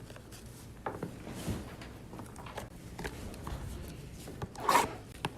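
Trading cards and their cardboard and plastic packaging being handled: faint scattered clicks and rustles, with one louder, short rustle near the end.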